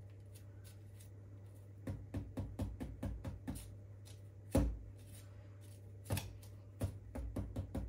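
Irregular small clicks and taps of a spoon and fingertips working muffin batter into a paper baking case, with a couple of sharper knocks about halfway through, over a steady low hum.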